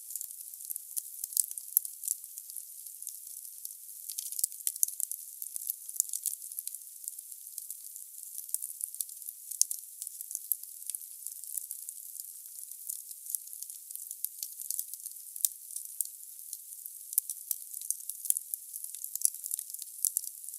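Firewood burning in a fireplace: a steady hiss with many irregular sharp crackles and snaps. The sound is all high, with no low rumble.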